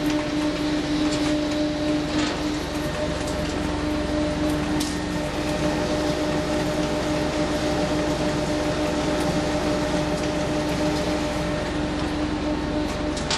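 A Frech 21-roll sheet-metal straightener (leveler) running, its 31 kW drive making a steady hum with one constant tone, with a few faint clicks over the run.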